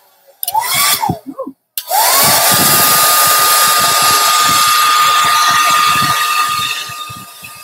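Hair dryer blowing over a wet acrylic pour painting. It runs up briefly and stops, then about two seconds in it starts again, its motor whine rising as it spins up and then holding steady under a loud rush of air. It grows quieter near the end.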